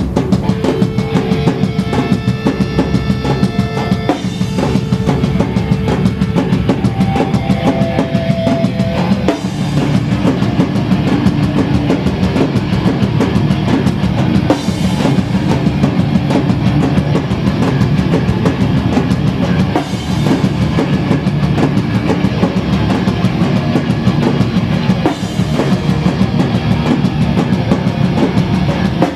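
Hardcore punk band playing live: fast, pounding drums with bass drum under loud distorted guitars and bass.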